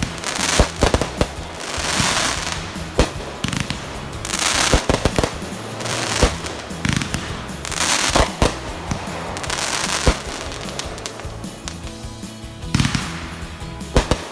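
Fireworks going off: many sharp bangs at uneven intervals, mixed with bursts of crackling hiss that each last about a second.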